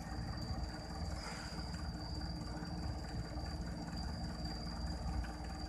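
A steady low engine-like rumble, with a constant thin high whine above it.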